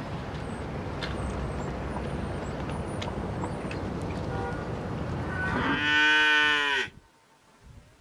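Wind noise with a few faint high chirps, then near the end a cow's loud moo, about a second long, that cuts off sharply.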